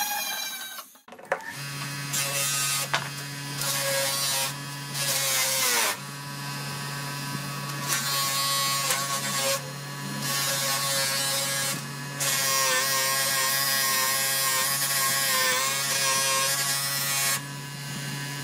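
DeWalt bench grinder running with a steady motor hum, starting about a second and a half in, as a steel hammer head and brass handle are pressed against its buffing wheel, with repeated stretches of rasping noise while the metal is polished.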